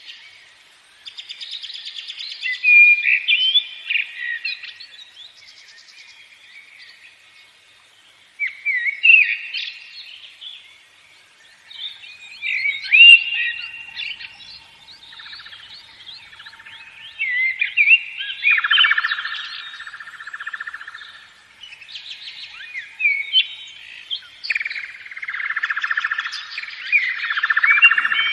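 Songbirds chirping and singing in bursts of quick rising and falling whistled notes, with short lulls between them. Harsher, buzzing calls join in the second half.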